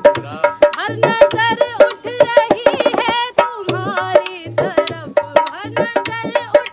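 Dholak played by hand in a quick folk rhythm, sharp slaps on the treble head over deeper bass-head strokes. Between about one and four seconds in, a wordless wavering vocal line sings over the drum.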